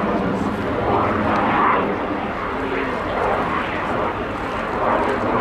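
Jet engines of a Messerschmitt Me 262 replica in flight: a steady jet rush that swells and eases slightly as the aircraft moves.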